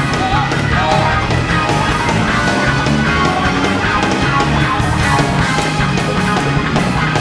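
Loud amplified music with electric guitar and a steady beat.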